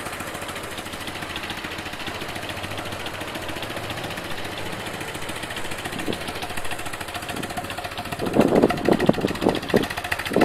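BMW R1200C's boxer-twin engine idling with an even, fast pulse through the exhaust, then revved in several quick throttle blips near the end.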